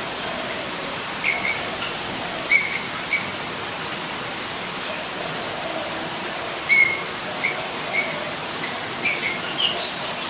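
Steady hiss of outdoor ambience with short, high animal calls at irregular intervals, several in quick succession near the end.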